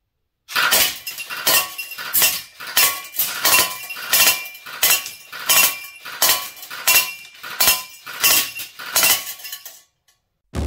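6 mm airsoft BBs from a G&G MXC9 electric airsoft gun striking a paper target in a BB target trap: a fast, even series of sharp clinking hits, about two to three a second, each ringing briefly, which stops shortly before the end.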